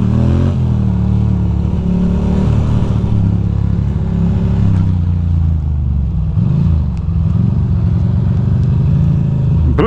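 2006 Ducati Monster 620's air-cooled L-twin engine running steadily as the motorcycle is ridden slowly, with a few brief rises and falls in engine speed about six to seven seconds in.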